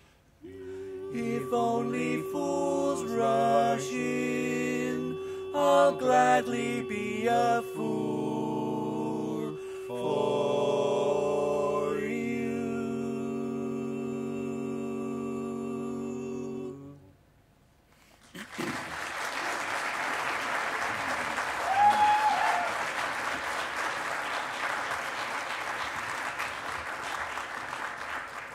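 Barbershop quartet singing a cappella in four-part close harmony. The song closes on a long held chord that cuts off about 17 seconds in. After a moment's silence the audience applauds, and one short call rises above the clapping partway through.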